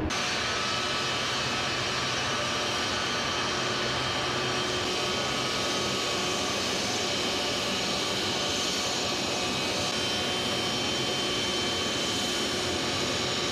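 Jet airliner's engines running as the plane taxis: a steady rushing noise with several high, steady whining tones.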